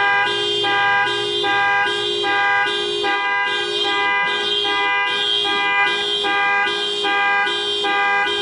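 Car alarm going off: the horn honks in a steady, regular rhythm, a little more than one blast a second.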